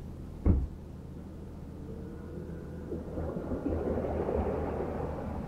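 Pickup truck engine idling low with a boat trailer hitched, a single sharp thump about half a second in, then a rushing noise that swells from about three seconds in.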